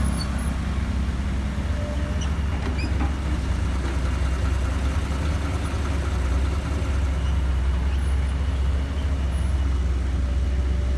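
Dump truck's engine running steadily, a low, even rumble heard from inside the cab as the truck drives.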